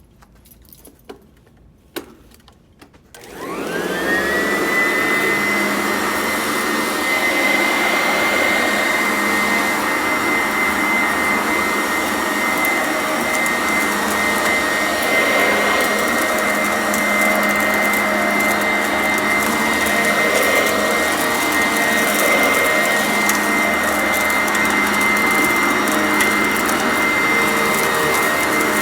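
Sanitaire commercial upright vacuum cleaner switched on after a couple of clicks about three seconds in, its motor whine rising quickly and settling into a steady high pitch. It then runs at full suction while picking up crunchy debris, with a fine crackling of bits going through it.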